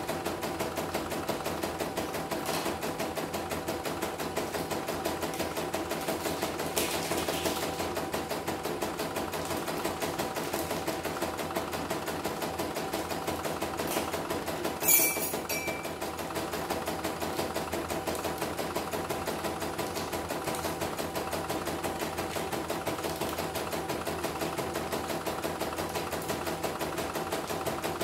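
CNY computerized embroidery machine stitching at speed, a steady fast rattle of needle strokes, running on a newly fitted rotary hook. A short sharp high sound comes about halfway through.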